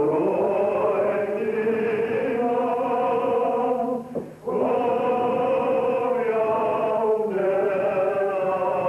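Small chapel congregation singing a slow Welsh hymn in long held notes, with a short break for breath between lines about four seconds in.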